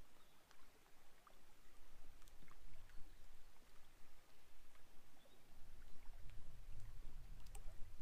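Faint water lapping against a rocky lake shore, with a low rumble that grows stronger past the middle and a few faint ticks.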